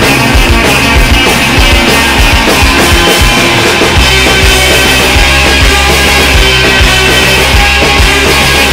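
Loud punk rock played by a full band, with drums, bass and electric guitars, continuous and dense.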